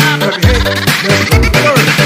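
Background music with a steady beat and a bass line, in an upbeat dance style.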